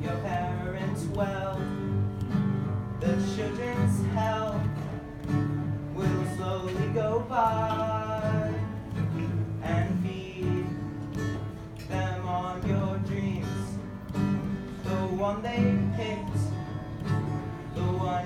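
A song: a voice singing held notes over guitar accompaniment.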